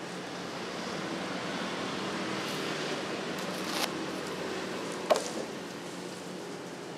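Steady hiss of spring roll wrapper dough being rubbed and dabbed onto a hot, steaming griddle, with two short taps about four and five seconds in.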